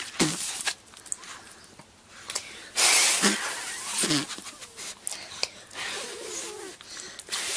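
A small long-haired dog sniffing and licking at a child's lips up close: loud bursts of breathy hiss, the strongest about three seconds in, with wet clicks and smacks in between.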